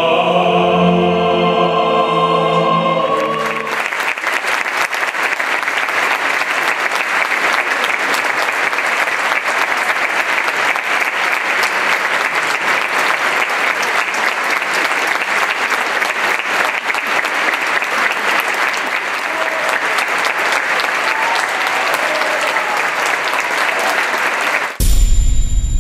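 An operatic tenor, choir and orchestra hold a final chord for about three and a half seconds, then the audience applauds steadily. Near the end the applause cuts off and a short electronic logo sting with a low rumble begins.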